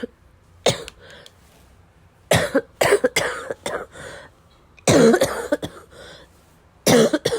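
A person coughing in repeated bouts of wet, chesty coughs: a single cough, then a run of several, the loudest fit about five seconds in, and another pair near the end.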